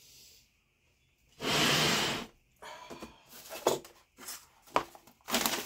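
Handling noise as a cast-iron intake manifold is shifted on a workbench: a loud scraping rustle lasting just under a second, then a run of knocks and clicks, two of them sharp, as the manifold is set up on its stand.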